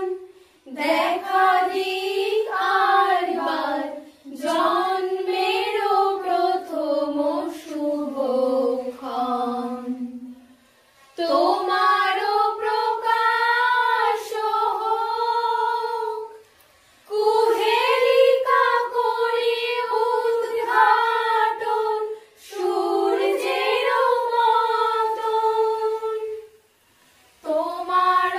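Three women singing a song together in unison without accompaniment, in long held phrases with short breaks for breath between them.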